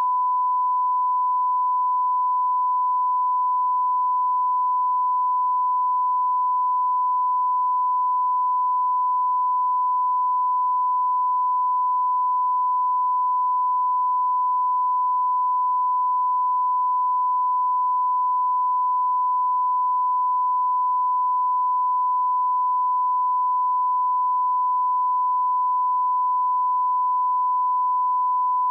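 A 1 kHz line-up tone: one steady, unbroken sine tone at a constant level, played over colour bars at the head of a broadcast master for setting audio levels.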